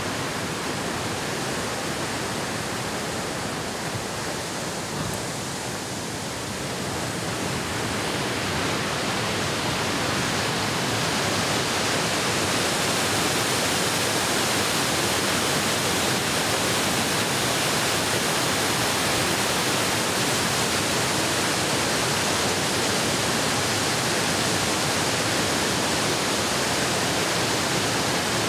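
Fast-moving stream water rushing in a steady hiss, growing a little louder about eight to ten seconds in.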